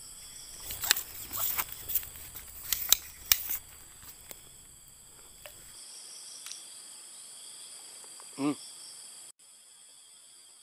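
Steady high-pitched drone of insects calling in the background. In the first few seconds it is overlaid by a quick run of sharp clicks and rustles from handling close to the microphone.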